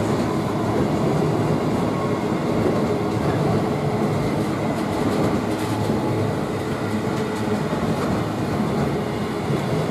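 Intermodal container wagons of a freight train rolling past at speed: a steady rumble of wheels on rail, with clanging from the wagons.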